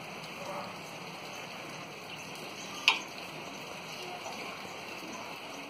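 Steady outdoor hiss of background noise, with one sharp click about three seconds in.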